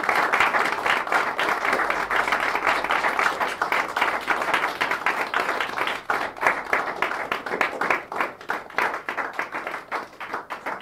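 Audience applauding: a dense patter of clapping from many hands that thins out and grows quieter toward the end.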